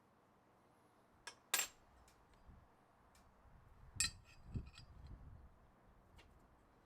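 Metal parts being handled and set down: two sharp clinks a little over a second in, then a cluster of clinks with duller knocks about four seconds in.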